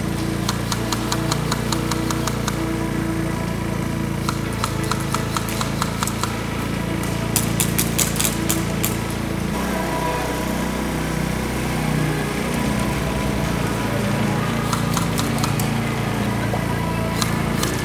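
A small engine running steadily, with several bursts of rapid clicking from airsoft guns firing on full auto over it.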